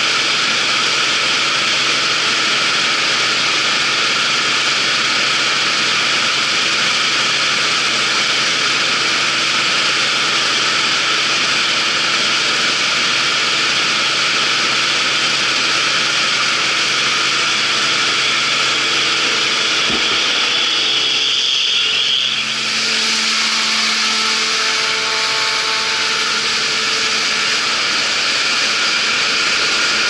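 Claas Dominator 88 combine harvester running steadily, a loud, even mechanical noise. A little over twenty seconds in, a short rising whine is heard, and then the pitch of the machine changes.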